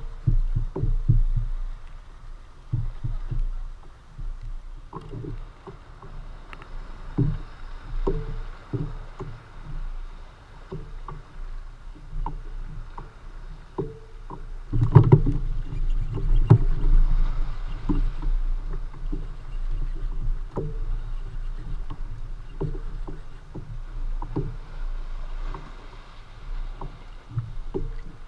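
Water lapping against a plastic fishing kayak's hull, with irregular knocks and thumps carried through the hull over a steady low rumble. A louder cluster of thumps comes about halfway through.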